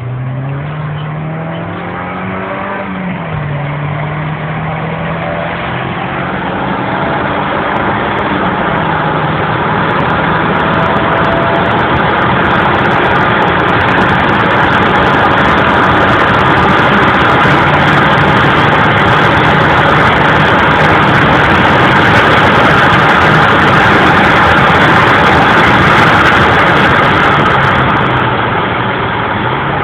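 Porsche 944 Turbo S's turbocharged four-cylinder engine accelerating through the gears, its pitch climbing and falling back at shifts about three and eight seconds in. After that the engine holds a steadier note under rising road and wind noise at speed, and eases off near the end.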